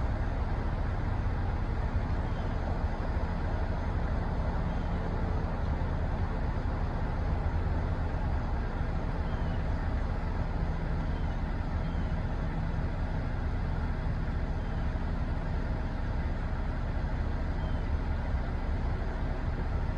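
A steady low rumble with no breaks, and a few faint short high chirps scattered through it.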